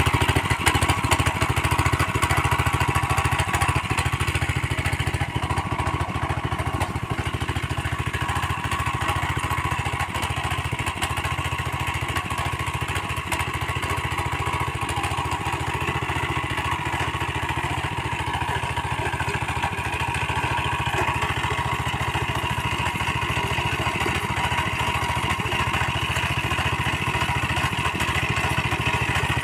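Husqvarna TF 545P power tiller's petrol engine running steadily under load while its tines churn through soil.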